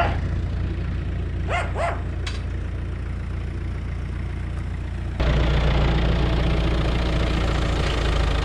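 A diesel tractor engine idling steadily, with a dog barking about three times in the first two seconds. About five seconds in, the sound cuts abruptly to a louder, closer engine: a red UTB 650 tractor's diesel engine running steadily.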